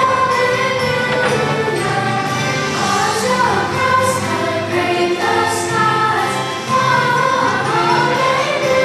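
An Easter hymn sung by a choir with instrumental accompaniment.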